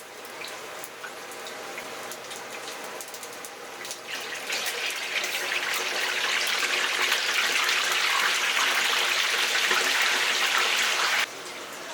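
A steady rushing hiss, like running water, swells much louder from about four seconds in and cuts off abruptly near the end, over a light crackle.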